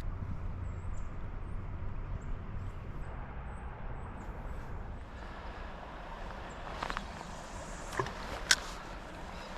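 Outdoor riverside ambience: a steady low rumble with faint, short high bird chirps in the first half, then a few sharp clicks and knocks near the end, one much louder than the rest.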